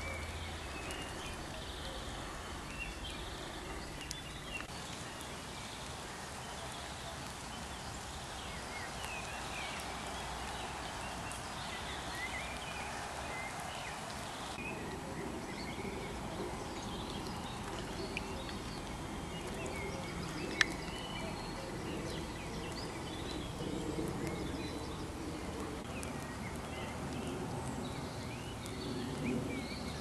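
Many birds singing at once, a dense chorus of short chirps and calls, with one sharp click about twenty seconds in.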